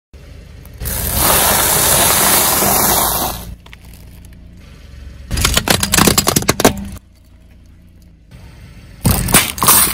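A car tyre rolling over objects on asphalt with the engine running low underneath. First comes a long rush of noise, then two bursts of cracking and crunching, the second as hollow plastic balls in a net bag are crushed.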